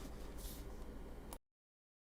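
Faint room tone with a low steady hum and a brief soft rustle about half a second in. A click comes about a second and a half in, then the sound cuts off to dead silence as the recording stops.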